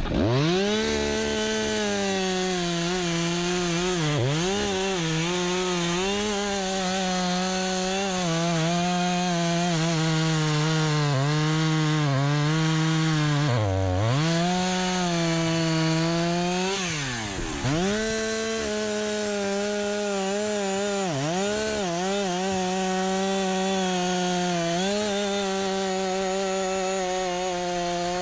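Chainsaw running at high revs while cutting wood. Its pitch drops and recovers about seven times as the chain bogs in the cut or the throttle is eased, with the deepest drops near the middle.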